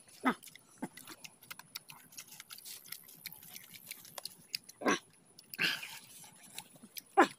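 Large green leaves crackling and rustling as they are handled and laid out, with a few short, loud cries heard over it.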